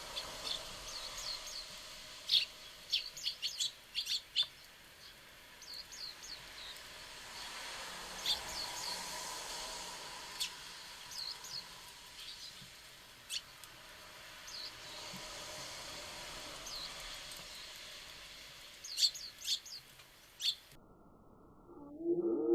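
Small songbirds at a feeder giving short, high chirps, scattered and irregular, with bursts of several in quick succession in the first few seconds and again near the end, over a faint steady background hiss.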